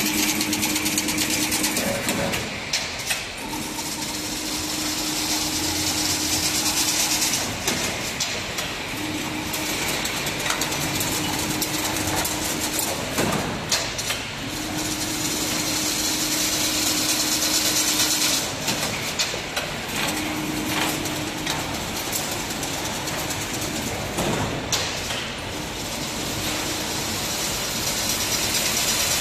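Automatic chain link fence weaving machine running, a steady mechanical clatter with a hum that starts and stops every few seconds and a few sharp knocks.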